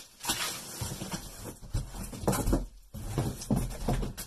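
Bubble wrap and plastic packaging crinkling and rustling as it is pulled away, with a few dull knocks from the guitar case and cardboard box being handled.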